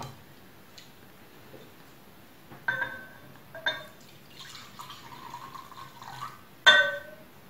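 Hot milk poured from a small enamel saucepan into a bowl, a trickle of about two seconds, with three ringing clinks of pan and bowl, the loudest near the end.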